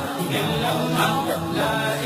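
Vocal-only devotional music: male voices in chorus hold sustained chanting notes between sung verses of an Urdu Islamic nazm.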